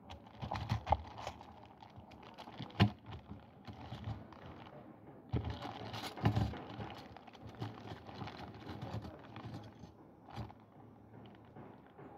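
Clear plastic bag crinkling as it is handled, with the metal crochet hooks inside clicking against one another in a few sharp knocks.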